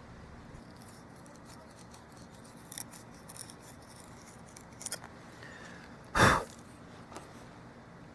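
Knife carving into a dry yucca-stalk fireboard: a few faint, short cutting scrapes, then one much louder, brief cut about six seconds in.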